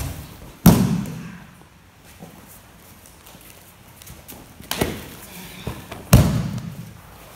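Bodies hitting the mat in aikido throws and breakfalls: two heavy thuds, about a second in and near the end, with a lighter one between, each followed by a short echo.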